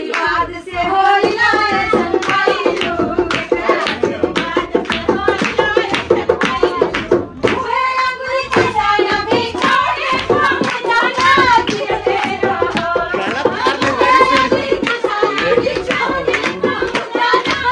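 Women singing a traditional Hindi folk song together, accompanied by a dholak barrel drum and steady rhythmic hand-clapping.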